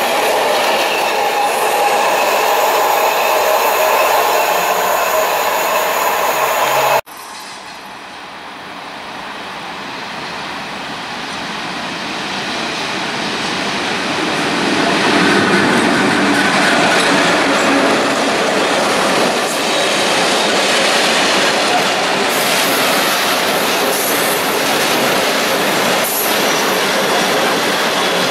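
Container freight wagons rolling past at close range under a concrete overpass, wheels clattering on the rails; the sound cuts off suddenly about seven seconds in. A freight train hauled by a Škoda class 182 electric locomotive then approaches, growing steadily louder. Its open coal wagons roll past with a steady clatter of wheels on the track.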